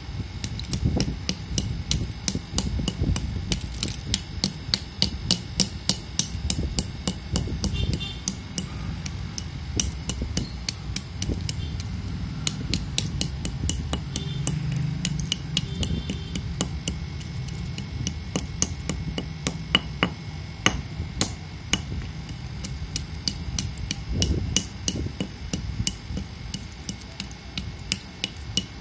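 A steel tool repeatedly striking and crushing dry chunks of multani mitti (Fuller's earth), giving rapid, irregular sharp taps and cracks with crumbling clay between them.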